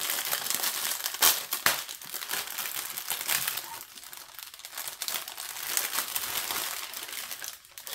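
Clear plastic bag crinkling as hands handle and work at a bagged strip of diamond-painting drill containers, with two sharp clicks a little over a second in.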